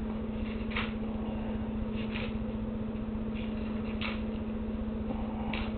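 A sheet of dried seaweed paper being torn into bits by hand: about five short tearing sounds spread out, over a steady low hum.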